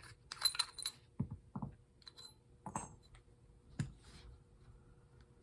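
Metal clinks and knocks of tools being handled on a workbench. There is a flurry of light clinks about half a second in, two dull knocks just after a second, and single sharp clicks near three and four seconds.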